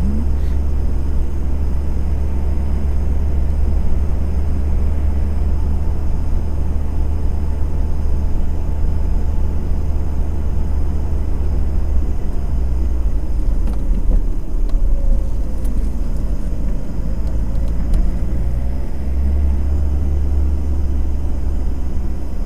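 A car driving along, with a steady low rumble of engine and road noise. The low drone eases for a few seconds past the middle, then returns.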